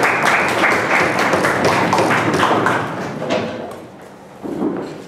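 Small audience applauding at the end of a speech, a dense run of claps that dies away about three and a half seconds in. A short bump follows near the end.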